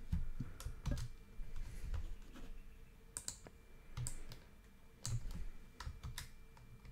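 Computer keyboard keys tapped in scattered, irregular strokes, a few short clusters of clicks with gaps between them.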